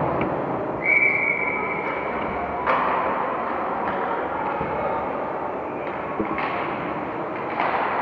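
Indoor ice rink during play: a steady wash of arena noise with skates and sticks on the ice, broken by a few sharp knocks of the puck or players against the boards. A high held tone begins about a second in and fades over the next couple of seconds.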